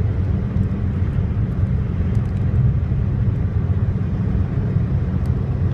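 Steady low rumble of a car's road and engine noise heard inside the cabin while cruising at highway speed.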